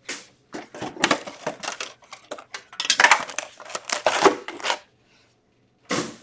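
Metal Upper Deck hockey card tin being opened by hand: the tin lid clinks and rattles, and foil card packs rustle and scrape against the metal as they are handled. The clatter comes in uneven bursts, with a pause of about a second near the end.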